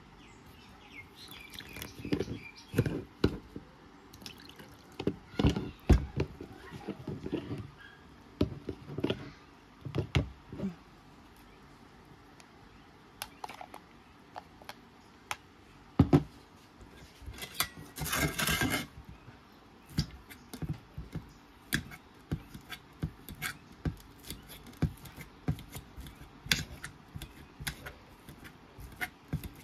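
Water poured from a plastic jug into a bowl of semolina, then a metal spoon stirring the wet semolina, giving repeated light clinks and taps against the bowl. About two-thirds of the way in there is a louder hissing burst lasting about a second. Near the end a metal fork clicks on an enamel plate while mashing boiled potatoes.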